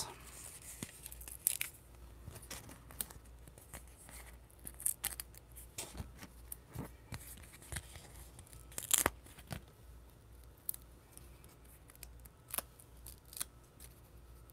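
Faint paper handling: a sheet of adhesive foam pieces flexed and the pieces peeled off their paper backing, giving a scatter of small crinkles and sharp clicks, the loudest about nine seconds in.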